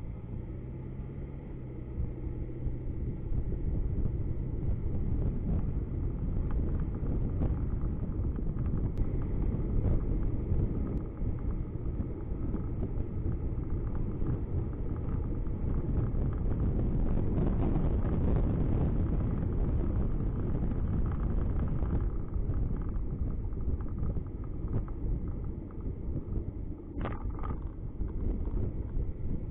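Car engine and road noise heard from inside a moving car, a steady low rumble that grows louder about two seconds in as the car picks up speed. A brief, higher-pitched sound comes near the end.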